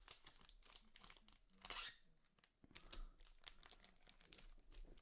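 Faint crinkling of a foil trading-card pack wrapper and cards being handled, with small clicks and rustles throughout and a louder crinkle just under two seconds in.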